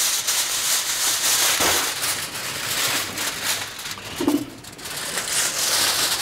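Aluminium foil crinkling and crumpling as it is pulled and pressed over a cooking pot, an irregular crackly rustle, with a short lull a little past the middle.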